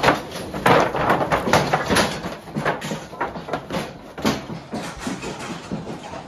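Cattle-handling noise in a corral chute: a dense, irregular run of knocks and clatters, like hooves and bodies jostling against the chute and its gates.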